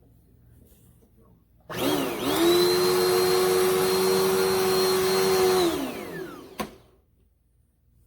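Dirt Devil Endura Lite bagless upright vacuum cleaner switched on: the motor whines up to speed a couple of seconds in and runs steadily for about four seconds. It is then switched off and winds down with a falling whine, with a single click as it slows.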